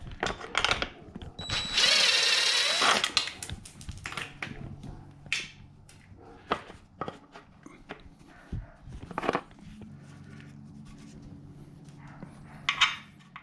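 Hand-tool work on a motorcycle: clinks and knocks of tools and fasteners, with a loud whirring burst of about a second and a half near the start.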